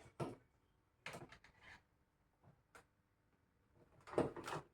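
A series of short knocks and clatters from handling: one near the start, a quick cluster about a second in, two small taps, and the loudest cluster near the end.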